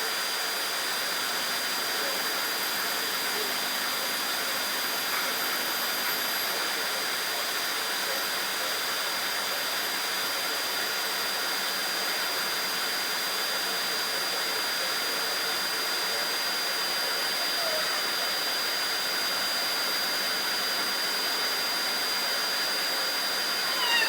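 Vacuum cleaner running steadily, its motor giving an even rushing noise with a thin high whine.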